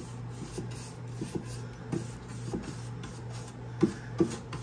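Dry paintbrush with a little white acrylic paint on it, stroked quickly back and forth over a stained wooden board. The bristles scrape in short strokes, a few a second, growing louder near the end as more pressure goes on.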